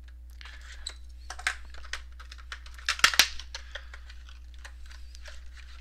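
Trading-card box and its packaging being handled and opened: irregular crinkles, taps and scrapes, loudest about three seconds in.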